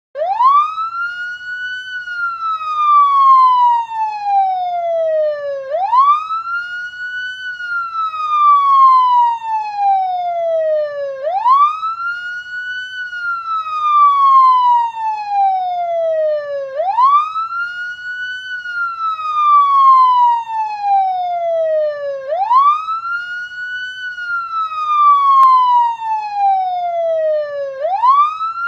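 Police siren sounding a wail: the pitch climbs quickly for about two seconds, then falls slowly for about three and a half, repeating about five times. It starts suddenly at full level.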